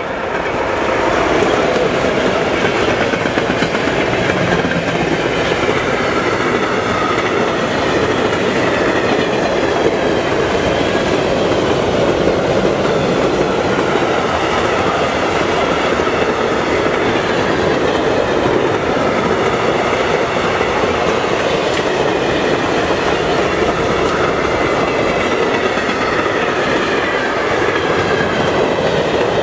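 Freight train hauled by a DB Class 155 electric locomotive passing close at speed: a loud, steady rush of wheels on rail with the clickety-clack of wagons running over the rail joints. The noise swells in the first second or two as the train arrives, then holds evenly while the wagons stream past.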